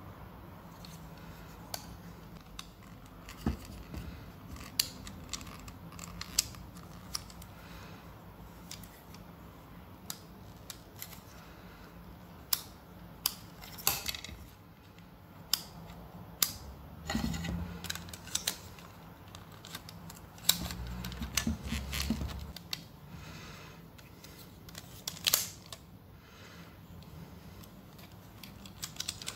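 Lego Technic plastic parts being handled and pressed together: scattered, irregular sharp clicks and snaps, with two short stretches of rubbing and rustling about halfway through.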